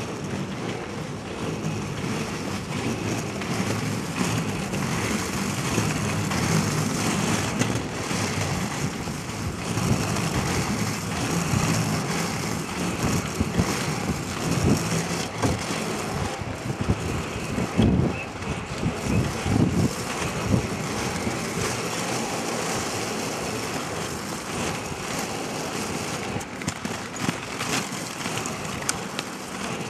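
Steady rushing noise of inline skates rolling over asphalt, with a few louder low thumps near the middle.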